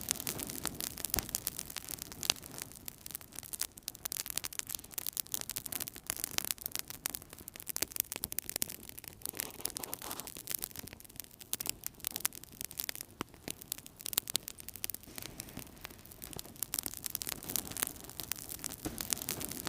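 Wood fire burning in a fireplace, crackling steadily with many small irregular pops over a low rumble of flame.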